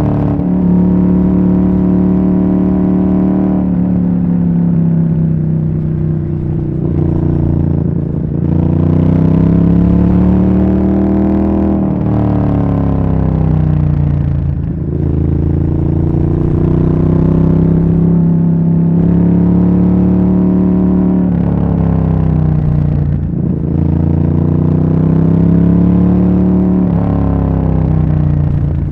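Ducati Monster S4R's 90-degree V-twin exhaust note while riding. The pitch rises and falls again and again as the bike speeds up and slows down, with brief dips between the rises where the throttle closes.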